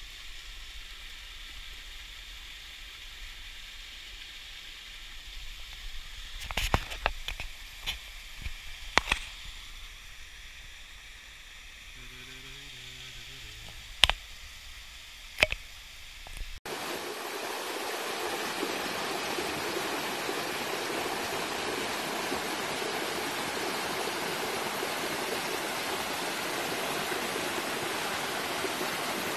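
Small waterfall splashing over a mossy rock face into a shallow stream. It is quiet over the first half, with a few sharp knocks. About two-thirds of the way through the water jumps louder and becomes a steady rush.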